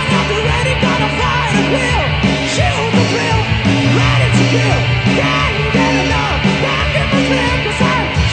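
Rock band playing loudly, with a lead vocalist singing over the band.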